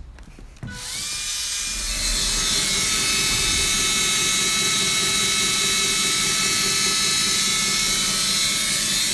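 Electric drill motor starting about a second in, spinning up in pitch, then running steadily at full speed, used on a stuck screw.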